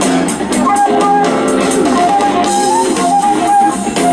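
Live rock band playing: a flute carrying the lead melody over electric guitars, bass guitar and drums, with a cymbal ticking at a steady beat.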